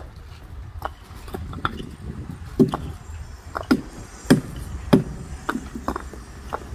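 Concrete paving stones clacking and knocking against each other as they are set into place by hand, a dozen or so irregular sharp knocks, the loudest a little after the middle, over a low steady rumble.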